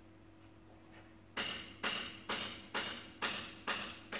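Paintless dent repair tap-down: a knockdown tool being struck on the car's steel body panel, knocking down the high spot raised by glue pulling. About seven sharp taps, roughly two a second, start about a second and a half in.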